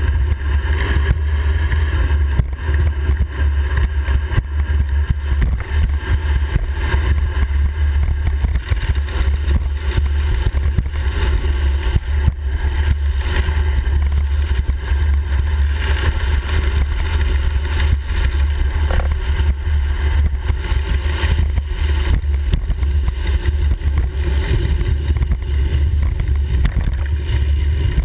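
Steady, loud low rumble of wind and road noise picked up by a camera mounted on the handlebars of a road bike descending at speed.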